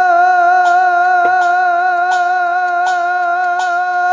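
A male singer holds one long sung note with a slight waver, over keyboard accompaniment, in a Bengali baul song. Sharp percussion taps sound several times beneath the note.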